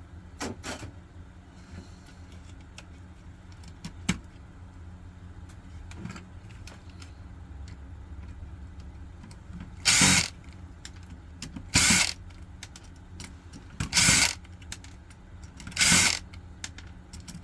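Metal and plastic parts of a CD/floppy drive being worked apart by hand, with a few light clicks at first. From about ten seconds in come loud rasping strokes about every two seconds, over a steady low hum.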